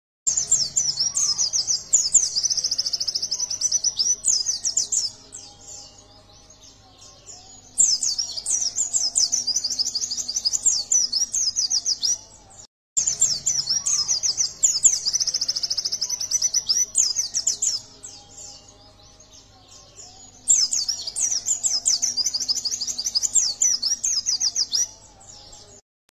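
White-eye (pleci dada kuning) singing in four loud spells of fast, high, chattering twitters, each several seconds long, with softer twittering between them.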